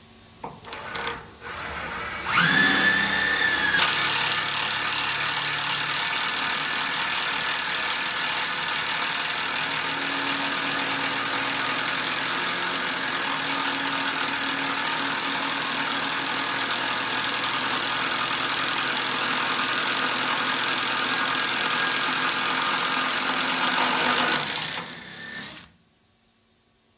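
Plasma cutter cutting through sheet metal: a steady, loud hiss of air and arc. It starts after a few short clicks about two seconds in and cuts off about 25 seconds in.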